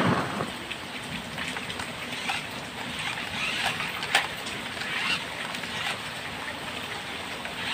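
A small battery-powered RC ATV runs on wet concrete through steady rain, its motor and tyres mixed with the patter of raindrops. A brief louder rush comes right at the start.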